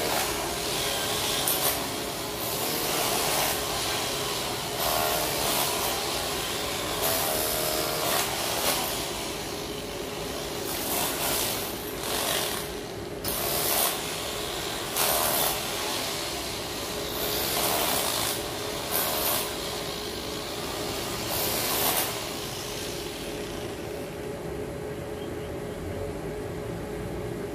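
Hand tool scraping and digging soil out of a road trench in irregular strokes a second or two apart, which stop a little past two-thirds of the way through. A steady machine hum runs underneath.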